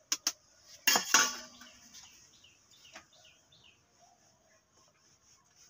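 Metal kitchen utensils clinking: a steel cup and spoon knocking against a saucepan on a gas stove, with a few light clicks and then a louder clatter about a second in that rings briefly.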